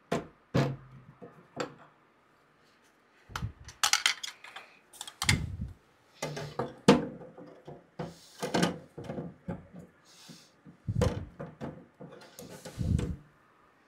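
Plastic filament spool and spool holder being handled and fitted against a 3D printer's side: a string of irregular plastic knocks, clicks and scrapes with short pauses between them.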